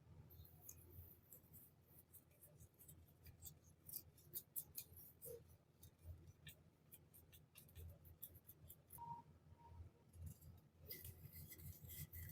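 Faint, irregular quick clicks and crinkles of packaging and small items being handled during unboxing, growing busier near the end.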